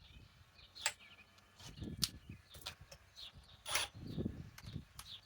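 Faint scattered clicks and knocks with a few low thumps, with no drill running: tools being handled and set down between drilling runs.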